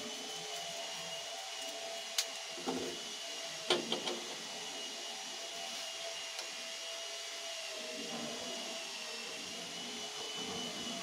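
A steady, high-pitched machine whine, like a small motor or fan running. A few sharp clicks come about two to four seconds in, as a chrome tap fitting is handled and threaded by hand into the wall.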